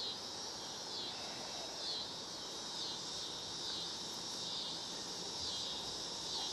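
Insect chorus trilling steadily at a high pitch, swelling and fading about once a second.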